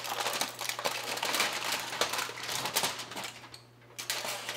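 Aluminum foil crinkling and crumpling as it is peeled off a roasting pan: a dense run of crinkling for about three seconds, then a shorter burst near the end.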